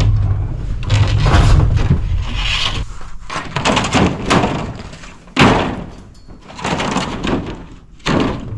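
Roofing panels being handled and laid on the roof, giving a few separate sharp knocks and bangs; the loudest comes about five and a half seconds in. A low rumble fills the first few seconds.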